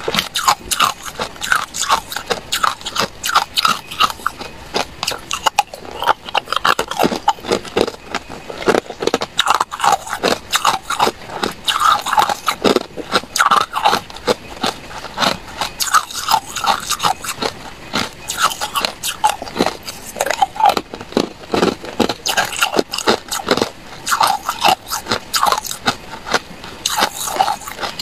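Hard ice cubes being bitten and chewed: continuous loud crunching, with many sharp cracks a second as the ice breaks between the teeth.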